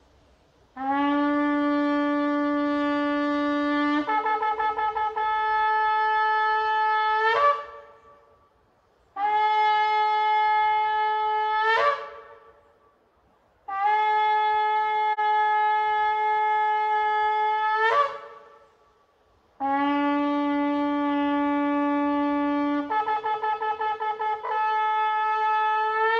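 A shofar blown in four long blasts separated by short pauses, each a strong horn tone full of overtones. The first and last start on a low note and jump up to a higher one with a rapid wavering stutter, and the blasts end in a brief upward squeal.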